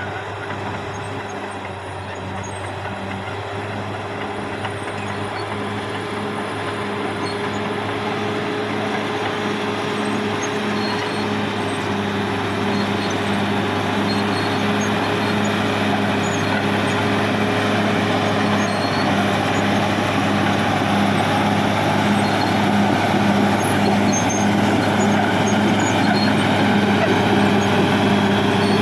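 Caterpillar D6R XL bulldozer running steadily under its diesel engine, with an even, repeating low pulse and gradually getting louder.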